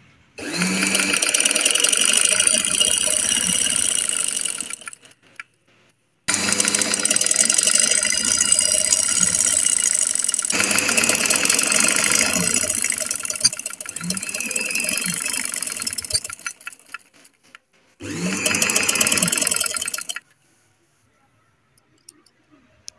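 Sewing machine running in three bursts of stitching, a fast even rattle: about four seconds, then a long run of about ten seconds, then a short one of about two seconds near the end, sewing elastic onto cloth.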